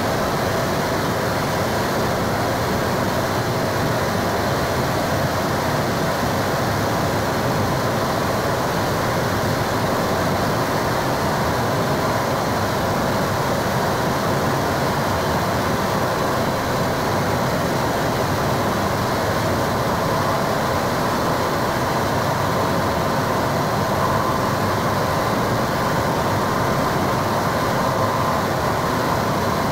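Harsh noise performance: a small Korg synth run through a Boss MT-2 Metal Zone distortion pedal and a cheap radio through a Boss octave pedal, giving a dense, unbroken wall of distorted noise at a steady level, with a faint held whine running through it.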